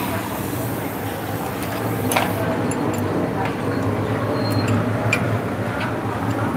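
Steady low rumble of background noise, with a few light metal clicks and taps as a sewing machine's rock shaft and fittings are handled and adjusted.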